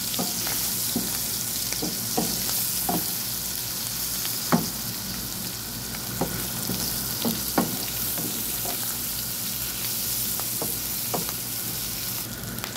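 Pre-boiled goat meat and bell peppers sizzling in a pan while a wooden spatula stirs them. The spatula's strokes scrape and knock against the pan about once a second, with two sharper knocks about four and a half and seven and a half seconds in.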